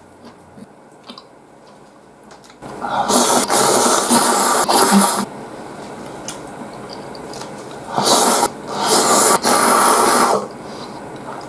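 Loud slurping of noodles dipped in thick broth: one long slurp of about two and a half seconds, then a short one and a longer one close together near the end.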